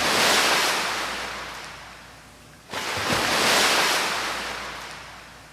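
Two waves breaking and washing out, one right at the start and another about three seconds in, each a rushing hiss that fades away over a couple of seconds.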